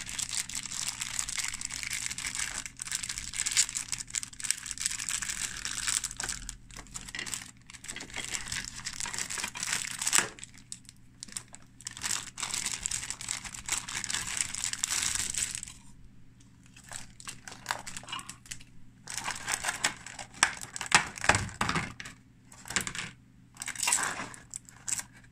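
Clear plastic packaging being crinkled and handled as a figure and its base are unwrapped. There are long stretches of dense crinkling, then shorter scattered crackles and clicks in the second half.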